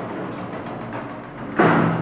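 Lift's sliding steel doors running shut, then banging together about one and a half seconds in with a loud thud and a low ring that dies away.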